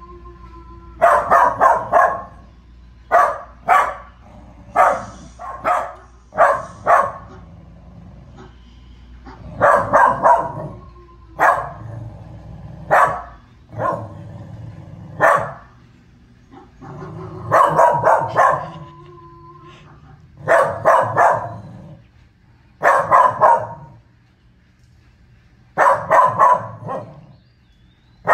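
Small dog barking in repeated bouts, single barks and quick runs of two to four, with short pauses between: alarm barking at a wolf on the television screen.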